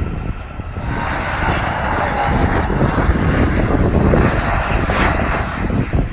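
Jet engine noise of an American Airlines Boeing 737 MAX 8 on final approach, its CFM LEAP-1B turbofans at approach power, a steady rushing sound growing louder from about a second in as the plane nears.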